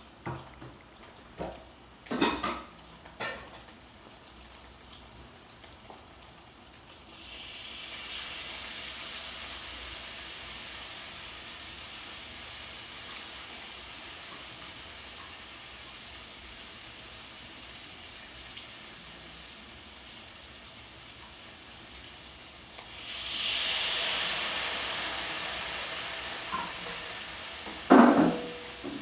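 Chilli paste frying in hot oil in a metal wok with fish balls: a steady sizzle sets in about a quarter of the way through and swells louder for a few seconds near the end. A spatula clinks on the wok a few times at the start and knocks against it again at the very end as the mix is stirred.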